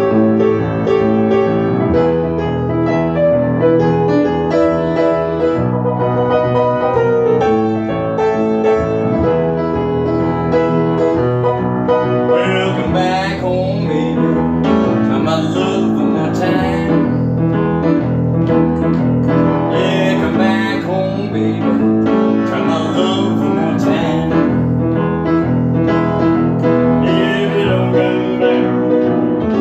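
Upright piano playing a blues tune; from a little under halfway through, the right hand moves into busier, higher runs.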